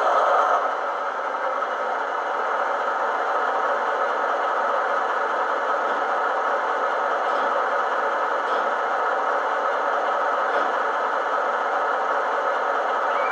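Sound decoder in a model HST power car playing its MTU diesel engine sound file, idling steadily through the model's small speaker. The sound is thin, with no deep bass.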